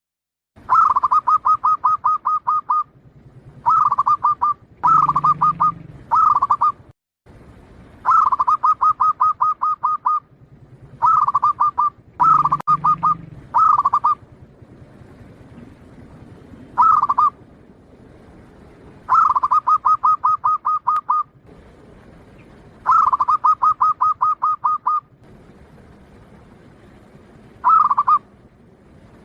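Zebra dove (perkutut, Bangkok type) singing its cooing song. About a dozen phrases, each a short higher opening note followed by a fast run of even, staccato coos, repeat with short pauses between them.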